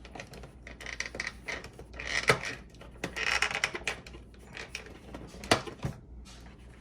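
Small plastic accessory hands of a 1/6-scale action figure being handled and sorted: rustling and scraping with scattered sharp clicks, the sharpest about two seconds in and again about five and a half seconds in.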